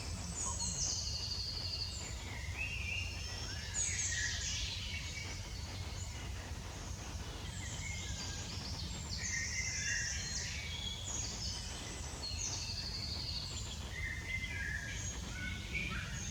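Birds chirping and trilling with many short, varied high calls, over a steady low rumble.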